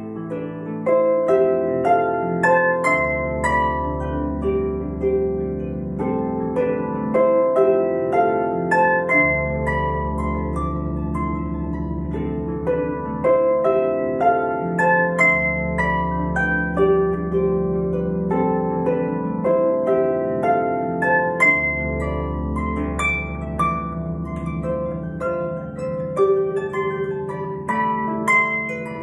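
Lever harp played solo: a steady stream of plucked, ringing notes, with deep bass notes sounding underneath about every six seconds.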